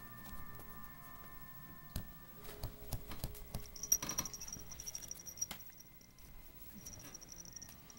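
A kitten pawing at a hanging fabric strap inside a pop-up nylon play tent: faint, scattered taps and rustles, with a sharper tap about four seconds in.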